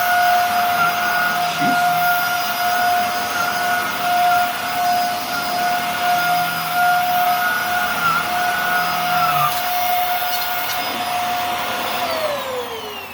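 Hoover Air Steerable upright vacuum cleaner running steadily with a high whine, then switched off about twelve seconds in, its motor's pitch falling as it winds down.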